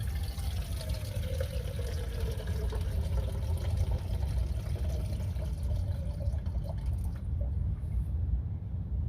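Water being poured into the big container of a German Army cook kit, its ringing note sliding down and then climbing again as the pot fills.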